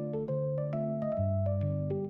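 Background music: a light, bouncy tune of mallet-like keyboard notes over held bass notes.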